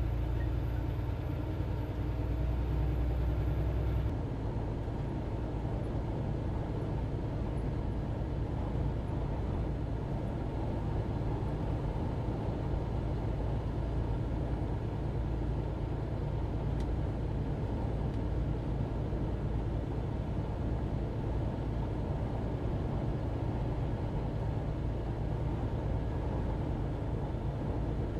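Steady low drone of a semi-truck's engine and tyres at highway speed, heard from inside the cab. The rumble eases slightly about four seconds in, then holds steady.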